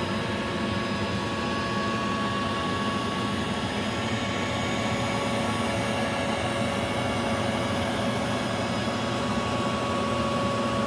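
Router spindle on a small 3040 CNC machine cutting a circle into pine with an eighth-inch bit, giving a steady whine. Mixed with it is the steady rush of a shop vacuum drawing the dust off through the dust shoe.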